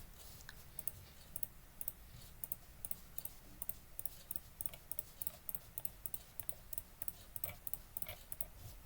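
Faint, quick clicks of a computer mouse, about three a second and unevenly spaced, many heard as a click-click pair of press and release.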